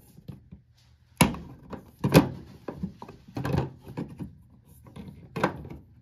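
Plastic clicks and knocks of an LG washing machine's drain-pump filter access cover being handled and pushed back into place: about four sharp knocks, the loudest about two seconds in, with lighter clicks between.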